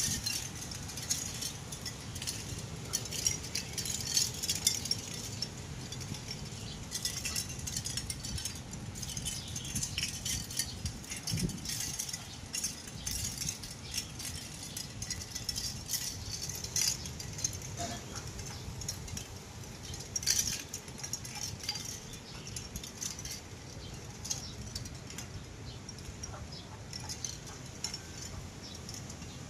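Strong seaside wind blowing, with a steady low rumble and frequent small rattles and clinks throughout.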